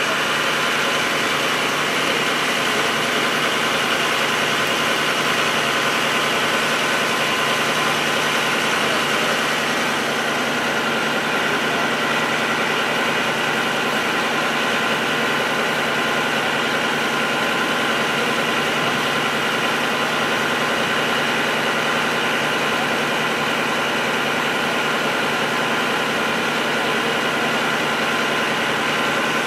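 Fire engine running steadily to drive its water pump for a hose line: an even, unchanging engine drone.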